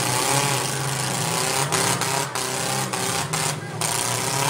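Demolition derby car engines running and revving across a dirt arena, several at once, with a steady mix of engine noise.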